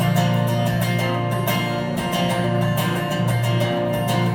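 Acoustic guitar strummed steadily, the instrumental break between verses of a country song.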